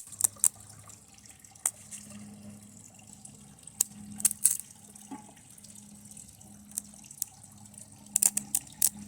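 Electrical arcing and components burning on a TV circuit board fed high current from a lead-acid battery: irregular sharp snaps and crackles, with a quick run of snaps near the end, over a faint steady low hum.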